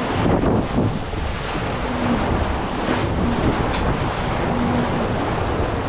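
Wind buffeting the microphone over water rushing and splashing along the hull of a J/70 sailboat sailing fast through choppy water, with a louder gust about half a second in.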